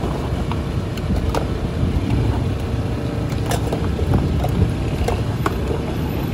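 Steady low rumble of roadside traffic, with a few sharp metal clinks as a steel ladle and a steel cup knock against a large steel pan of juice.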